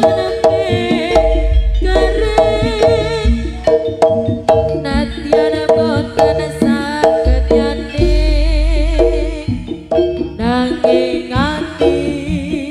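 Live Jaranan ensemble music. Struck pitched percussion plays a steady run of notes with drums, a wavering high melody line sounds over them, and deep long booms come twice.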